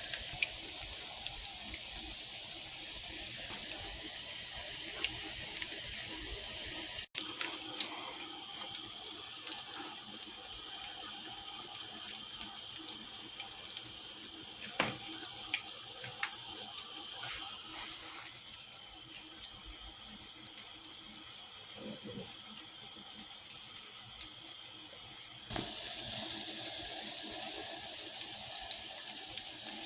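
Kitchen tap running steadily into a sink, with a few knocks and clinks about halfway through.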